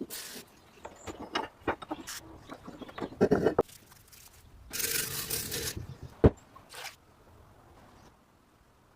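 Rusty hand-cranked meat grinder being worked on: scattered metal clinks and scrapes of its parts, a hissing burst of about a second around the middle, and one sharp knock about two-thirds of the way through.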